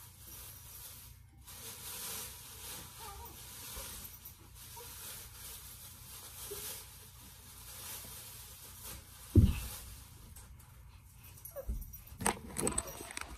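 Faint room noise with one heavy thump about nine seconds in, then a run of knocks and rustles near the end as a hand reaches for and handles the recording phone.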